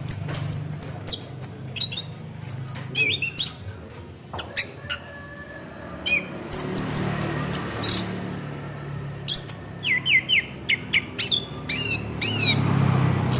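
Orange-headed thrush singing a fast, varied song of quick high whistled and scratchy notes that sweep up and down, with a run of repeated falling notes near the end, over a low steady hum.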